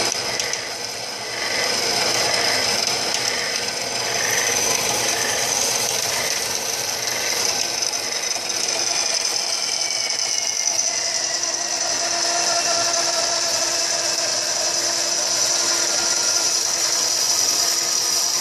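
Harbor Freight horizontal metal-cutting bandsaw running steadily, its water-cooled blade cutting through square metal tubing with a continuous grinding rasp. A faint whine slowly drops in pitch around the middle of the cut.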